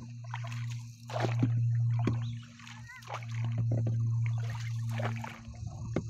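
Wooden paddle dipping and splashing in lake water as a small boat is paddled, with a few irregular splashes and knocks. A steady low hum runs under it, dropping out briefly a few times.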